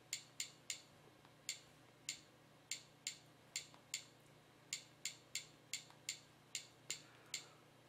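Typing on a Huawei MediaPad tablet's touchscreen keyboard: an uneven run of light, faint clicks, one with each keypress, about two to three a second.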